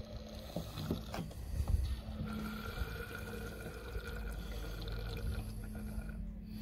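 Gasoline trickling slowly from a plastic gas can's spout into the carburetor of a 1969 Ford C700's 330 V8, priming it for a cold start, with a few light taps about a second in.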